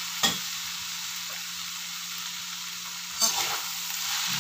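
Pancit noodles sizzling in a hot wok as they are tossed and stirred with two ladles, under a steady low hum. A ladle knocks sharply against the wok about a quarter second in and again about three seconds in.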